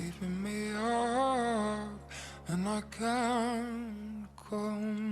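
A slowed-down, reverb-heavy pop song, its vocal singing long held notes with vibrato in three phrases over a steady low drone. No words are picked out, so it sounds like wordless vocalising.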